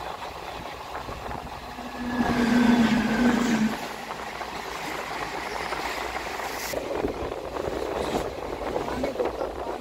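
Indian Railways express train running, heard from on board: steady running noise with rattling and a couple of sharp knocks near the end. About two seconds in, a louder stretch with a steady low tone lasts about a second and a half.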